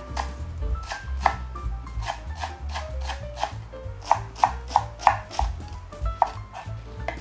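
Kitchen knife mincing a Japanese long onion (naga-negi) on a wooden cutting board: an uneven run of knife strikes against the board.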